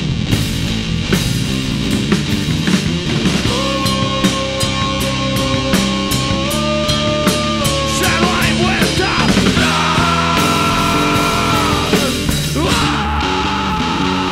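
A rock band playing live: driving drums and bass under long held lead notes that bend upward partway through and slide down near the end.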